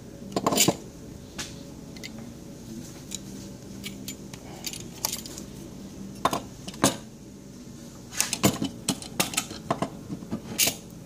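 Sharp metallic clicks and clatter of a DeWalt folding utility knife being handled and worked open, scattered through, with a busy run of clicks in the last few seconds.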